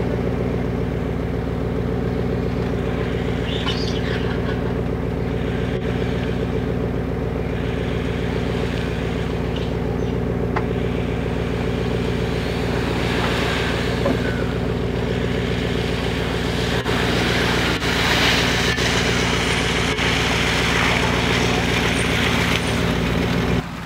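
A 4x4's engine running steadily at low revs as it crawls through mud. The drone holds an even pitch throughout. From about two-thirds of the way in, a louder rushing noise joins it.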